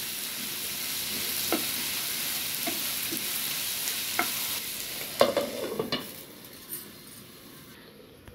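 Chopped onions, tomatoes and cashew pieces sizzling in oil in a nonstick frying pan while a wooden spatula stirs them, with scattered light knocks of the spatula on the pan. About five seconds in come a few sharper knocks, and then the sizzle fades to a faint, muffled hiss as the pan is covered with a glass lid.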